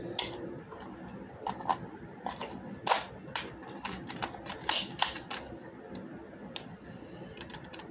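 Irregular sharp plastic clicks and clacks from a plastic toy pistol and its parts being handled, the loudest click about three seconds in.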